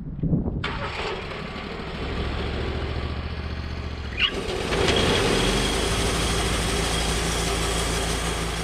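Sawmill engine running steadily; about four and a half seconds in it gets louder and harsher, with a hiss spreading high up, as the saw works under load.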